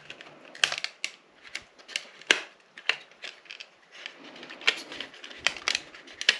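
Irregular sharp clicks and taps of small plastic parts being handled and pried apart in a motorcycle instrument cluster.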